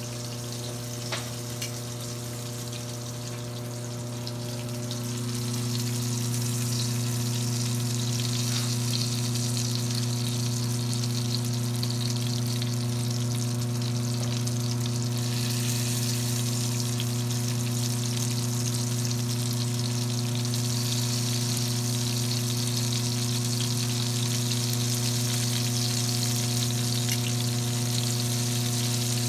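Breaded mozzarella cubes sizzling in hot oil in a frying pan, with a steady low hum underneath; both grow louder about five seconds in. Metal tongs click against the pan twice about a second in.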